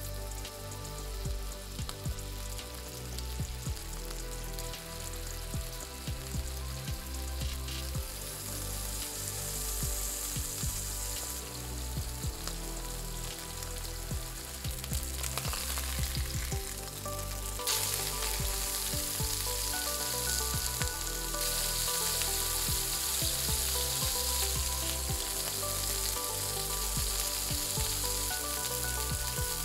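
Beef burger patty frying in oil in a non-stick pan, a steady sizzle that jumps louder about two-thirds of the way through.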